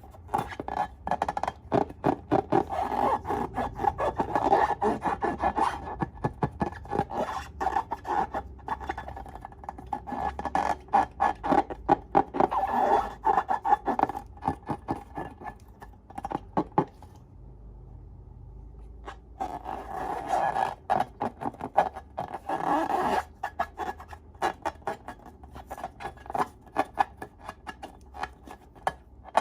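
Slime being squished and kneaded by hand, giving a dense run of sticky pops and crackles, with a short pause about two-thirds of the way through.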